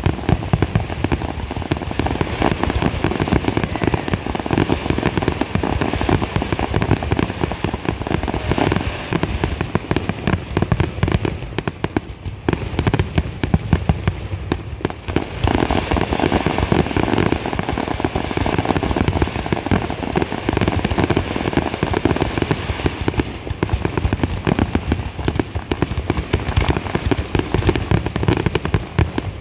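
Fireworks grand finale: a dense, continuous barrage of shells bursting and crackling in rapid succession, with brief lulls about twelve and fifteen seconds in.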